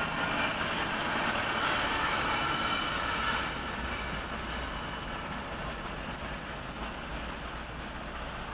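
Norfolk Southern freight train rolling past on the tracks, a steady rumble and rattle of wheels and cars. It is louder for about the first three and a half seconds, then drops off to a lower, steady rumble.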